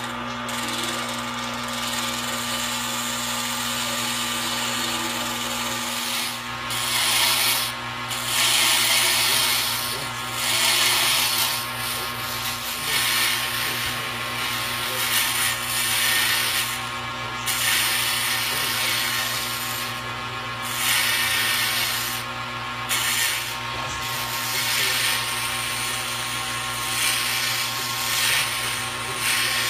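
A woodworking power tool running with a steady motor hum, with repeated louder bursts as it bites into wood every second or two.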